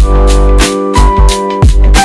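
Background music with a steady drum beat, a deep bass and sustained keyboard notes.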